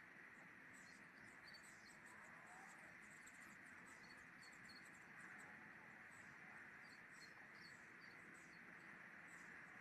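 Near silence: a faint steady outdoor hiss with scattered short, high chirps of small birds throughout.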